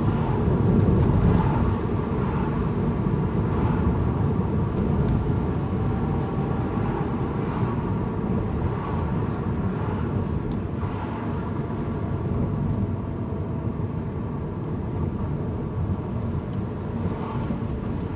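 Steady engine and tyre road noise inside a moving car's cabin.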